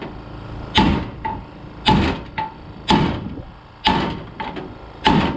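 A hammer striking metal differential parts: five heavy blows about a second apart, each followed by a lighter rebound tap and a short metallic ring.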